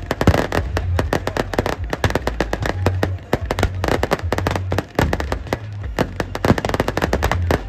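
Firecrackers packed into burning effigies going off in a rapid, unbroken string of sharp cracks, many a second, over a low steady rumble.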